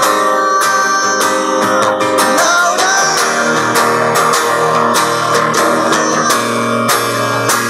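Acoustic guitar played solo, an instrumental passage without voice: chords and notes with sharp rhythmic strokes, and a few notes bending in pitch near the middle.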